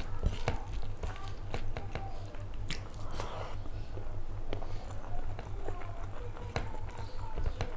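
Close-miked eating sounds of rice and curry eaten by hand: wet chewing with many sharp lip smacks and clicks. A steady low hum runs underneath.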